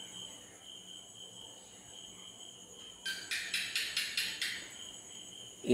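Insects chirping in the background: a faint, steady high-pitched trill, joined about three seconds in by a louder run of rapid pulses, about five a second, lasting about a second and a half.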